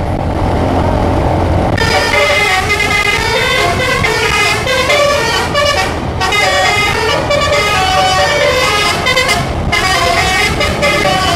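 A bus's multi-note telolet (basuri) horn plays a quick, jumping tune of changing notes. It comes in about two seconds in and breaks off briefly near six and near ten seconds, over the low rumble of the bus's engine.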